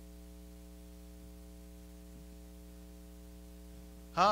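Steady electrical mains hum with its stack of overtones and a faint hiss; a man says "Huh?" at the very end.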